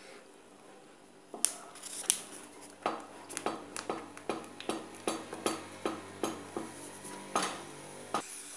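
Wooden spoon knocking and scraping against the sides of a stainless steel pan while stirring a thick chocolate brigadeiro mixture. The sharp knocks come irregularly, starting about a second in and running at about two a second later on.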